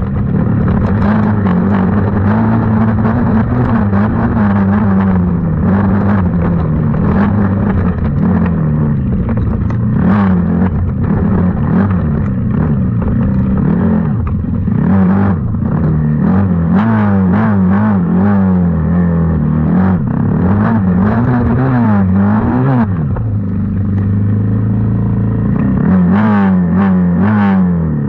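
Small 90cc racing engine revving hard and continually, its pitch climbing and dropping every second or so as the throttle is worked on and off, with scattered knocks and rattles of the machine running over rough ground.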